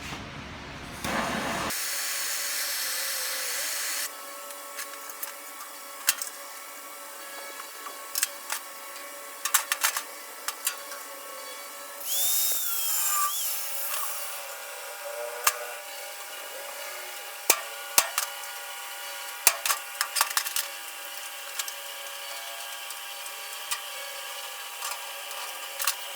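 Power drill running in two short bursts, the first about three seconds long and the second about two, backing fasteners out of a steel tool chest base. Sharp clicks and taps come in between.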